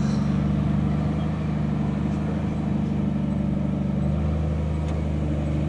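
Off-road vehicle engine running steadily at low revs, a low even drone.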